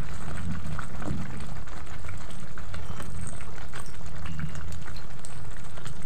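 Chicken curry with coconut milk bubbling and popping steadily in a wok on the stove, over a steady low hum.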